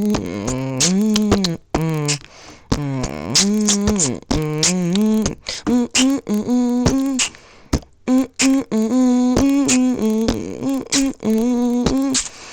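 Beatboxing: a voice humming held, sliding notes while sharp mouth clicks and pops beat out a rhythm.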